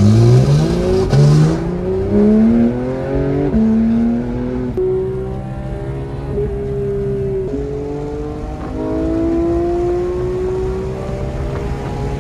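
Porsche 911 GT3's 4.0-litre flat-six accelerating hard, heard from inside the cabin: the engine note climbs in pitch through each gear and drops at several quick upshifts.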